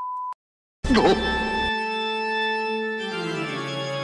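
A steady, edited-in beep tone that cuts off just after the start. After a brief silence, organ-like music comes in about a second in, holding a chord that changes to new notes near the end.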